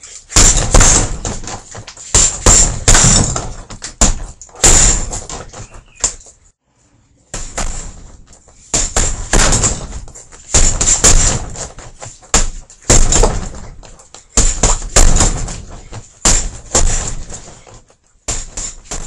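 Boxing gloves striking a hanging heavy bag in rapid flurries of loud punches, several blows per combination, with short pauses between combinations.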